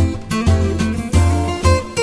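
Background music with guitar over a steady bass beat.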